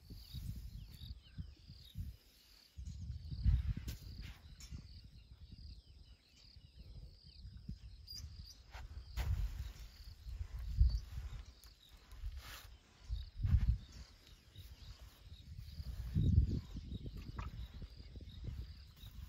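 Steady high insect chirring in the background, with uneven gusts of low buffeting noise that swell several times, and a few sharp knocks.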